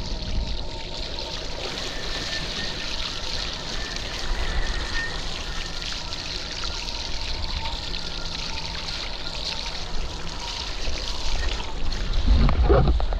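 Steady hiss of water rushing past a SUP foil board's hydrofoil mast as the board flies over the sea, with wind buffeting the microphone, louder near the end.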